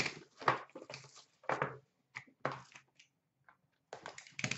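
Hands opening and handling a sealed cardboard hockey card box: a run of short, irregular rustling and scraping noises from the packaging.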